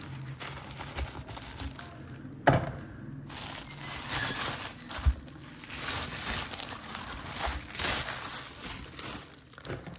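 Shoes being handled and swapped on a display turntable: crinkling and rustling of the packing material inside them, with a sharp knock about two and a half seconds in and a low thump about five seconds in as a shoe is set down.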